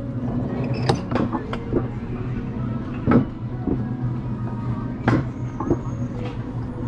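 Wiegand alpine coaster sled being hauled up the lift section on its steel track: a steady low hum of the lift drive with intermittent rattling clacks, the loudest about three and about five seconds in.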